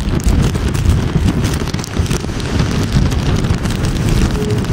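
Strong hurricane wind buffeting the microphone in a loud, uneven rumble, with a hiss of rain over it.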